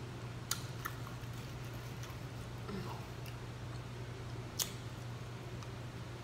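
A metal fork clicking a few times against a foam takeout tray while eating, the sharpest click about four and a half seconds in, over a steady low hum.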